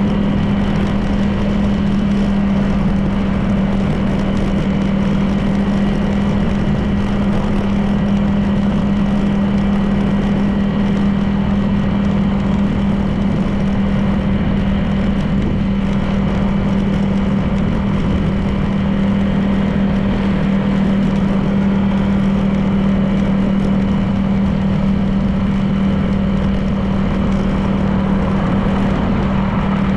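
Honda PCX 160 scooter's single-cylinder engine running at a steady, even pace while riding, with a constant low hum and road noise.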